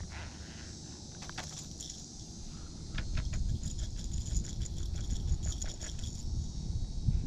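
Wind rumbling on the microphone, growing louder about three seconds in, with a quick run of light clicks and rattles from handling a baitcasting fishing reel and rod.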